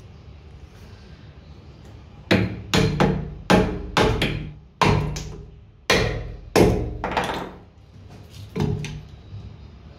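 Seven sharp, irregularly spaced metal knocks, each ringing briefly, as a steel rod is knocked against the cast-iron head of a piston water pump being taken apart, followed by a softer knock near the end.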